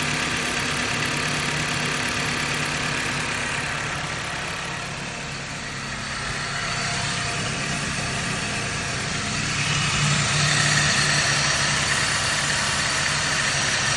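2009 Dodge Caliber engine idling steadily, a little louder from about ten seconds in.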